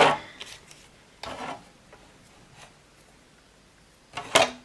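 A clear plastic cutting plate is handled and rubbed against the plastic platform of a Sizzix Big Shot die-cutting machine, making short scraping sounds: a brief one about a second in and a louder one near the end.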